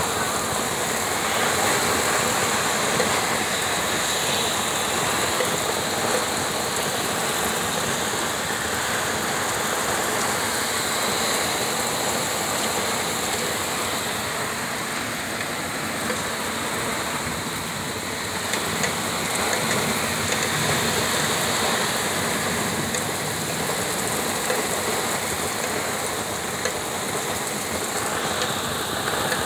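Heavy rain pouring down steadily, a dense even hiss of downpour on pavement and surfaces.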